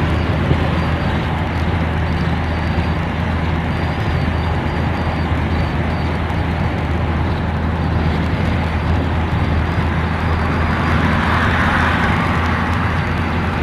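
Steady road and engine noise of a car driving at speed, heard from inside the moving car: an even rush of tyre and wind noise over a low, steady drone. The rush swells for a couple of seconds about eleven seconds in.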